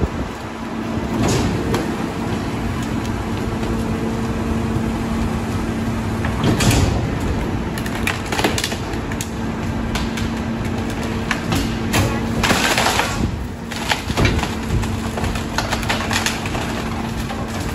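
Leach rear-loader garbage truck's packer blade crushing cardboard and wood demolition waste in the hopper, with irregular cracking and splintering and a loud burst of crunching about twelve seconds in, over the steady drone of the Mack truck's engine.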